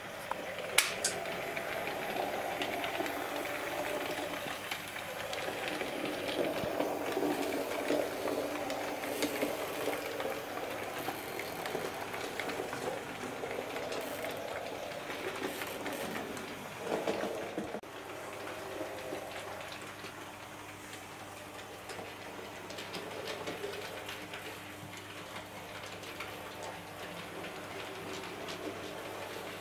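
Hattons OO gauge P class model locomotive and its coaches running on the track: a steady rolling rattle of wheels on rails. It is louder over the first half, as the train passes close, and falls to a quieter level from about 18 seconds in.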